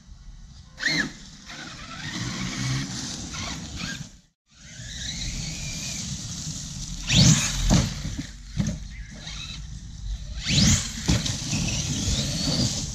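Electric RC monster truck on an 8S LiPo being driven hard: its motor and drivetrain run steadily, with sharp whines that rise in pitch on bursts of throttle, the loudest about halfway through and again near the end.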